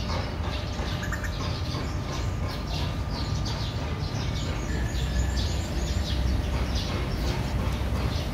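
Small birds chirping over and over in the background, many short high chirps, over a steady low rumble.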